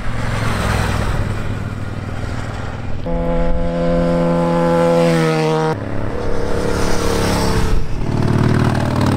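Motorcycles passing one after another, their engines holding steady revs, with the pitch dropping as each goes by. One strong engine sound cuts off abruptly about halfway through, and another bike is heard approaching near the end.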